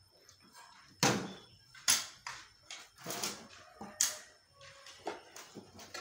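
Metal hoes chopping into a heap of soil and rocks: sharp strikes about once a second, the four loudest in the first four seconds, followed by lighter hits and scrapes.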